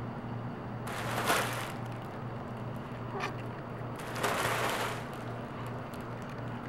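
Fabric cat tunnel rustling and scraping on a hardwood floor as a cat moves in it and dashes out, in two short bursts, about a second in and about four seconds in, with a brief one between. A steady low hum runs underneath.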